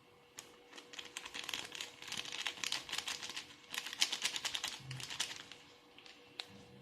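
A quick, irregular run of sharp clicks and taps lasting about five seconds, thinning to a few stray clicks near the end.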